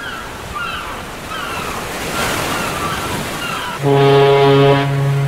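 Surf washing on a shore with a few short, falling bird cries. About four seconds in, a foghorn sounds one long, low, loud blast.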